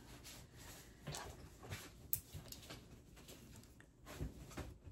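Faint rustling and scattered light clicks of a cross-stitch piece being taken out of its embroidery hoop.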